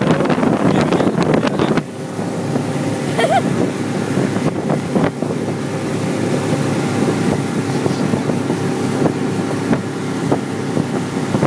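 Speedboat running steadily under way, its engine and the rush of the hull through the water, with wind buffeting the phone's microphone; louder and rougher for the first couple of seconds.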